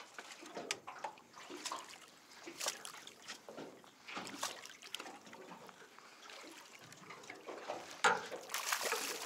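Water lapping and sloshing against the side of an aluminium boat in irregular small splashes, louder near the end.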